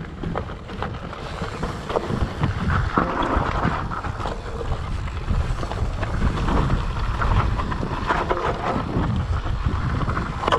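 Mountain bike rolling downhill on loose dirt and rock: a steady rumble of wind noise on the microphone, with the tyres crunching over gravel and many small clicks and knocks from stones and the bike rattling.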